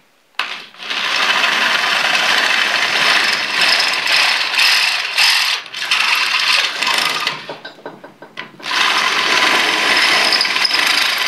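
Electric drill opening up bolt holes in a metal motor mounting plate, running in two long stretches with a brief pause a little past the middle.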